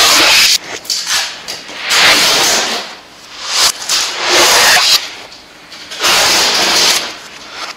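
Red adhesive tape pulled off its roll in quick strips, a rasping, zipper-like tearing noise repeated about five times, each pull lasting around a second.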